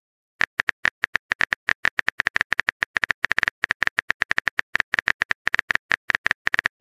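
Phone-keyboard typing sound effect: a fast, even run of short clicks, each with a brief high beep, one per letter as a text message is typed out. It starts about half a second in.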